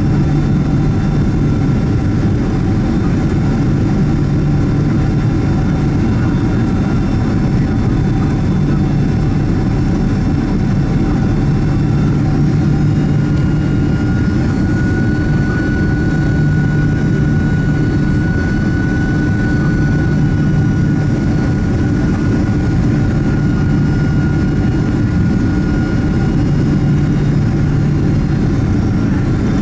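Cabin noise of a Boeing 767-300ER in flight, heard inside the cabin ahead of the wing: a steady rush and drone from its General Electric CF6 turbofans and the airflow. A thin engine whine rises a little in pitch about halfway through and then slowly settles back.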